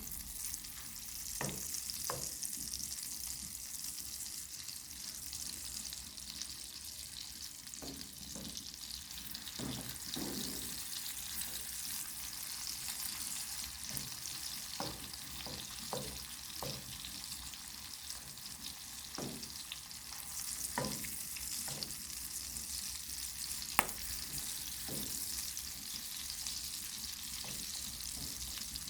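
Food sizzling steadily in a frying pan, with scattered short scrapes and taps of a utensil and one sharper click late on.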